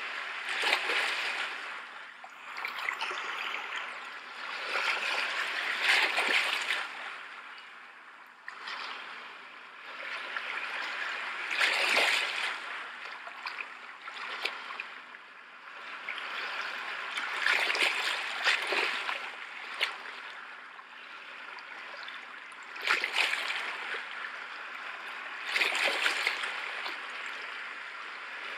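Ocean waves breaking and washing up a shore, each wave swelling and fading every five to six seconds.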